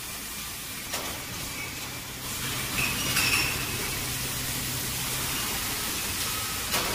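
Glass wine bottles clinking against each other now and then as they are handled, over a steady hiss of background noise.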